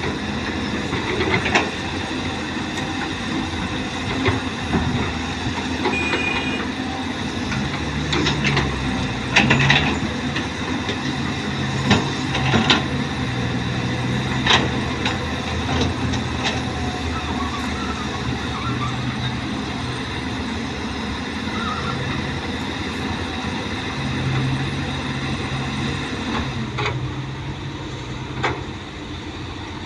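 Caterpillar excavator's diesel engine running steadily, with sharp metallic clanks now and then.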